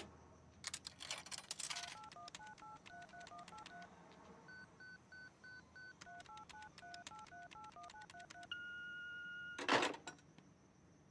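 Payphone keypad being dialled: a long run of short touch-tone beeps, one per key press, after a burst of clicking about a second in. Near the end a steady tone holds for about a second, then the handset is hung up on the hook with a loud clunk.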